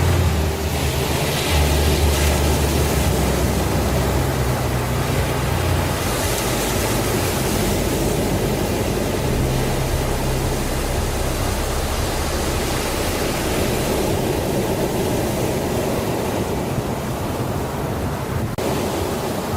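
Slow instrumental music: long held low bass notes that change every few seconds, under a steady rushing wash.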